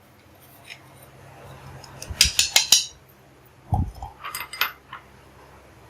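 Metal clinks and taps from a tea strainer as powder is strained through it: a quick run of about five sharp taps about two seconds in, a dull knock near the middle, then a few more clinks.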